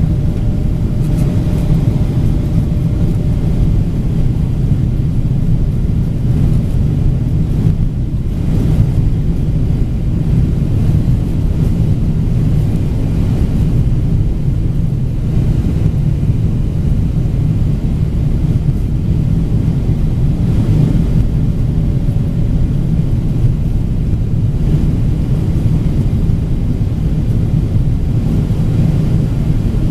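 Steady low rumble of an airliner's jet engines and rushing air, heard from inside the passenger cabin as the plane comes in to land.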